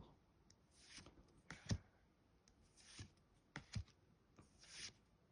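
Near silence with a handful of faint, short swishes and taps: Pokémon trading cards being slid and handled.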